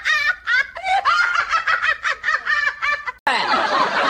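High-pitched laughter in quick, evenly spaced 'ha-ha' pulses, cut off abruptly about three seconds in and followed by a denser, more echoing burst of laughter.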